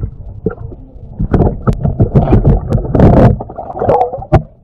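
Muffled water sloshing with irregular knocks and thumps, heard through a camera held underwater beside a boat as a released fish swims off.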